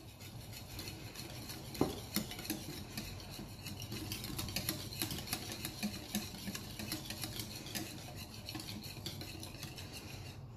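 Wire balloon whisk beating a thick yogurt sauce in a ceramic bowl: a fast, continuous run of light clicks and scrapes as the wires strike the bowl, with one louder knock about two seconds in.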